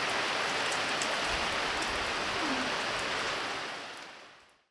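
Heavy rain falling, a steady dense hiss that fades out over the last second.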